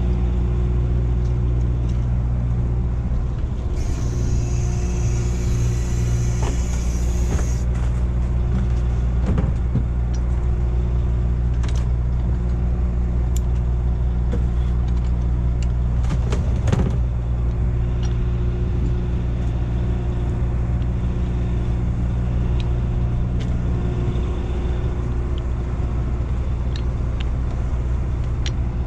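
Boat engine running with a steady low drone. A few sharp metallic clicks and knocks come from trawl gear being handled, and a high hiss lasts a few seconds starting about four seconds in.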